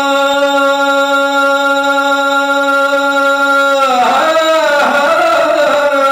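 A man singing unaccompanied in rai style: one long held note, then a wavering, ornamented run about four seconds in, settling back onto a held note near the end.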